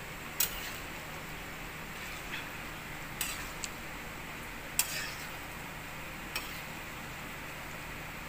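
A metal ladle clinking against the side of a metal cooking pan while stirring a watery curry: about five short, scattered clinks over a steady faint hiss.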